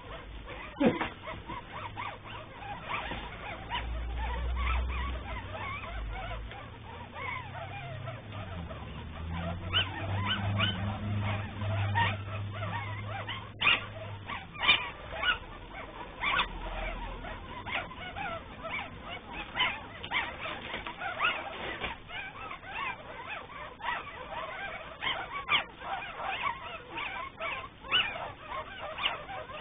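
A litter of Cavalier King Charles spaniel puppies, about 17 days old, squeaking and whimpering in short, scattered cries.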